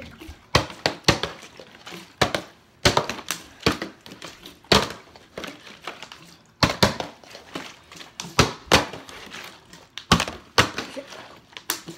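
Partly filled plastic water bottles being flipped and landing on a wooden floor: a run of irregular thunks and knocks, sometimes two or three in quick succession as a bottle bounces or topples.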